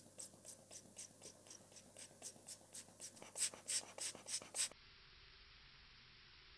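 Rapid, even puffs of air from a hand-squeezed rubber blower, about four a second and growing louder toward the end, blow-drying a freshly rinsed watch balance wheel and hairspring. They stop suddenly about five seconds in, leaving a faint steady hiss.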